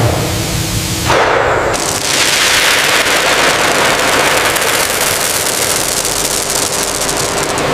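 Pearls pouring from a stainless-steel scoop into a steel hopper full of pearls: a dense, steady crackling clatter of many small hard beads, filling out about two seconds in.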